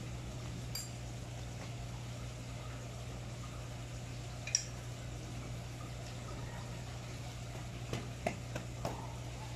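A steady low hum, with a sharp click about halfway through and a few small knocks near the end, from hands working on a folding bicycle's saddle, rear wheel and crank.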